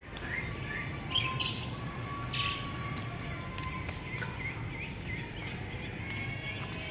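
Small birds chirping over and over in short rising notes, over a steady low background rumble. A brief, louder rasping noise comes about a second and a half in, and a weaker one about a second later.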